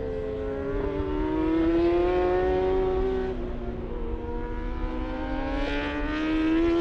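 High-revving superbike racing engines on track, the engine note sagging and then climbing again as the bikes brake for corners and accelerate out.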